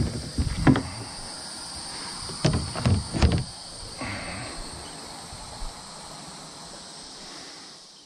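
Insects droning steadily in the background, with a few low knocks and bumps in the first half; the sound fades out at the end.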